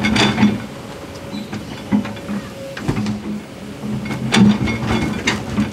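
Excavator bucket dropping rocks and soil into a steel dump-truck bed, with a series of irregular clanks and knocks as stones hit the bed. Under them the excavator's diesel engine runs with a steady hum.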